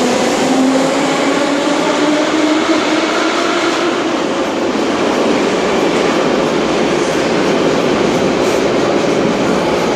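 Moscow Metro Ezh3 subway car heard from inside while running: a steady loud rumble of wheels and rails, with a motor whine that rises slightly in the first few seconds.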